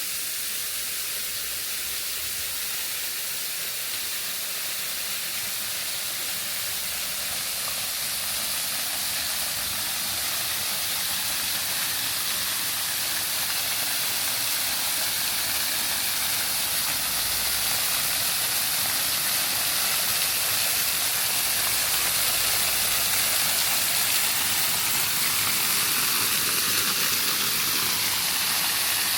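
Waterfall rushing: a steady hiss of falling water that grows gradually louder.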